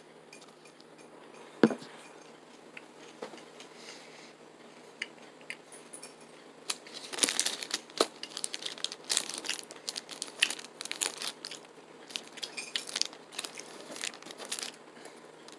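A chewy granola bar being eaten from its foil wrapper: irregular crinkling and crackling clicks, dense from about seven seconds in, after a mostly quiet start with one sharp click.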